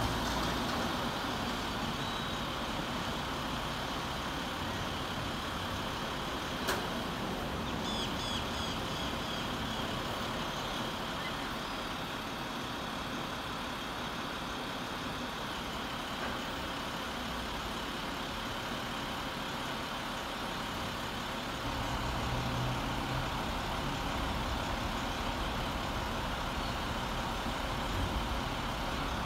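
Steady truck engine running amid street traffic noise, growing a little louder and deeper about three-quarters of the way through. One sharp click comes about a quarter of the way in, followed soon after by a quick run of high chirps.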